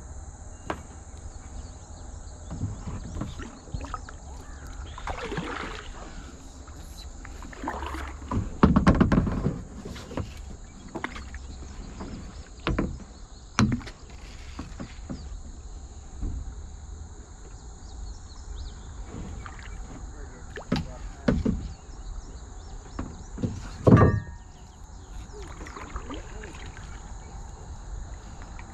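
Kayak paddling: paddle blades splashing through the water and the paddle now and then knocking against the plastic kayak, the loudest about nine seconds in and again near 24 seconds.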